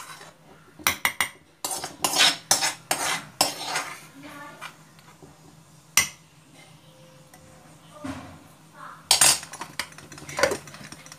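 A steel spoon clinking and scraping against a stainless steel mixer-grinder jar in a string of sharp clinks as masala is spooned in. Near the end comes a louder clatter of the metal lid being handled.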